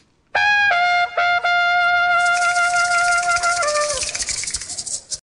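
Short musical intro jingle led by a brass, trumpet-like melody: a few quick notes, then one long held note, then two lower notes falling away. A high hissing shimmer joins about two seconds in, and the jingle cuts off suddenly near the end.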